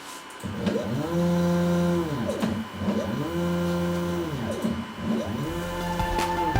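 Stepper motors of an eShapeoko CNC machine driving the axes through three moves in a row. Each is a whine that rises in pitch as the axis accelerates, holds steady while it travels, then falls as it slows.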